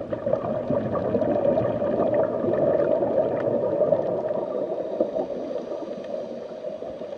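Motorboat running on the water: a steady churning of motor and water, a little louder in the middle of the stretch and easing off towards the end.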